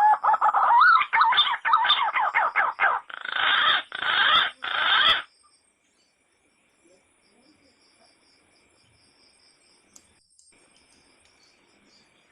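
Rooster calls: the end of a crow runs into a string of loud, rapid calls for about five seconds, which stop abruptly. After that, only faint high chirping remains.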